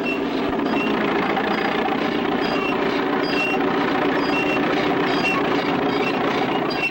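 Road roller engine running steadily, with short high squeaks repeating irregularly over it.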